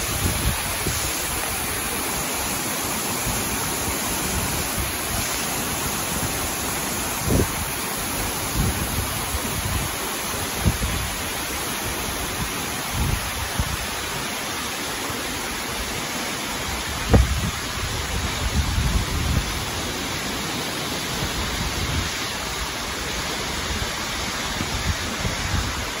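Waterfall spilling down a rock face: a steady, even rush of falling water, with a few short low thumps on the microphone.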